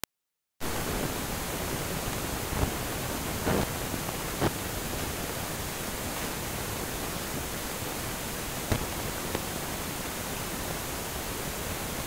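Steady, even hiss of a recording's noise floor, with a handful of short clicks or taps scattered through it. The loudest click comes about two and a half seconds in.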